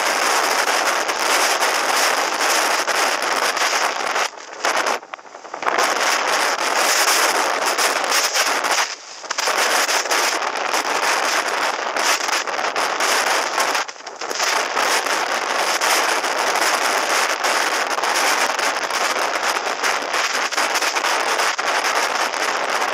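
Wind buffeting the microphone of a helmet-mounted camera on a motorcycle at highway speed: a loud, steady rush that briefly dips several times.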